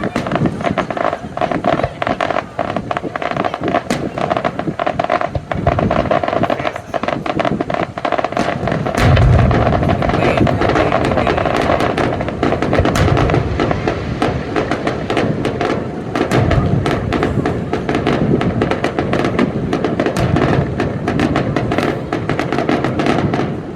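Fireworks display: a dense, continuous run of sharp cracks and pops, with deep booms about nine seconds in and again about sixteen seconds in.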